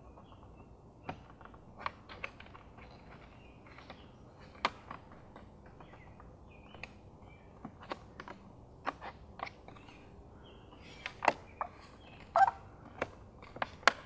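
Scattered small plastic clicks and creaks as the new LED turn-signal strip is pried and pressed into the plastic mirror housing with a plastic trim tool, with a brief squeak near the end.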